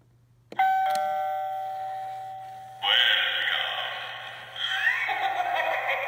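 Animated eyeball Halloween doorbell prop triggered by its push button: its small speaker plays an electronic doorbell chime that starts suddenly and fades over about two seconds. At about three seconds in, a loud, spooky voice-like sound effect cuts in and continues.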